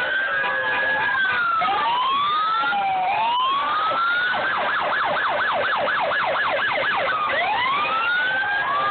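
Several police car sirens wailing at once, their slow rising and falling tones overlapping. About four seconds in, one switches to a fast yelp, about four cycles a second, for some three seconds before the wails return.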